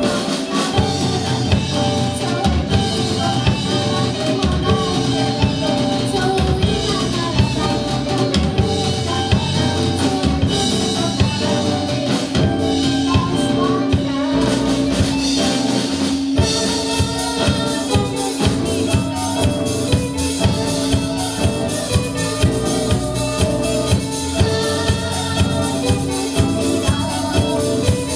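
Live band playing amplified music, with a drum kit keeping a steady beat and a singer over it.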